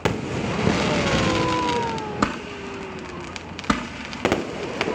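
Aerial fireworks going off close by: a loud boom at the start, then a dense crackling hiss with slowly falling whistles, and four sharp bangs in the second half.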